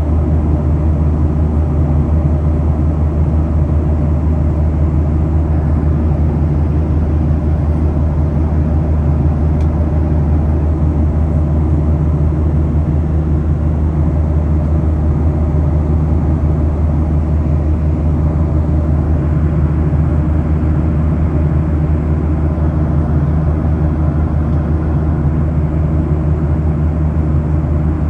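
Airliner cabin noise in flight: a steady, loud drone of jet engines and airflow heard from inside the cabin, with a strong low hum that doesn't change.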